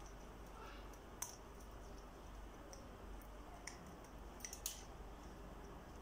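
African grey parrot's beak cracking and picking at a peanut shell held in its foot: a few sharp, scattered clicks, one about a second in and several more close together a little past the middle.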